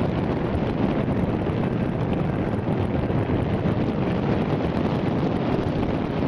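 Wind rushing steadily over the microphone of a camera carried in flight on a paraglider.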